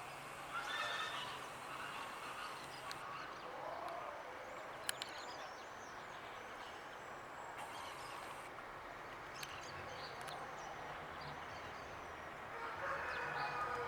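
Outdoor ambience with faint bird calls, one at the start and more near the end, and two short sharp clicks about five seconds in.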